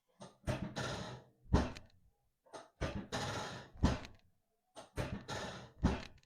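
Chiropractic spinal adjustment: three sharp thumps about two seconds apart, each coming right after a sighing rush of breath.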